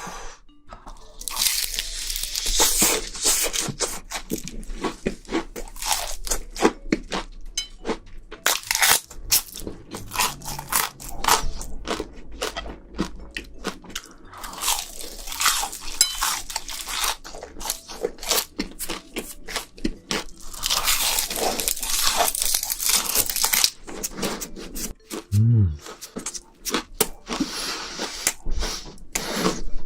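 Close-miked crunching and chewing of crispy fried shrimp: dense, irregular crackling bites and chews, with a short hum of the eater's voice near the end.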